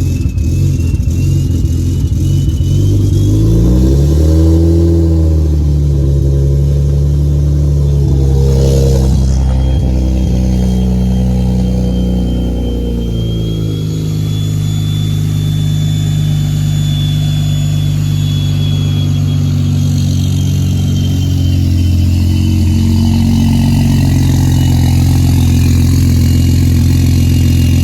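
BMW 335i's turbocharged straight-six running just after a cold start. The revs climb a few seconds in, then hold at a steady fast idle that eases down a little about halfway through.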